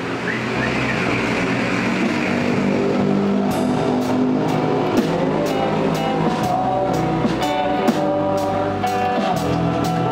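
Instrumental live band music: two acoustic guitars strumming chords, with drums and a cymbal played with sticks. The drum hits fall into a steady beat from about a third of the way in.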